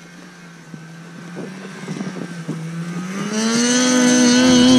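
2019 Polaris Switchback Assault 850 snowmobile's two-stroke twin engine approaching under throttle. It runs steadily at first, then grows louder and rises in pitch about three seconds in, and is loudest near the end.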